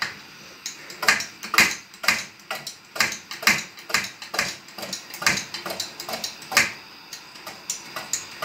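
Yüksel 250 CP pressure kerosene lantern being pumped by hand: a run of sharp metallic clicks, irregular, about two a second, over a faint steady hiss from the lit burner.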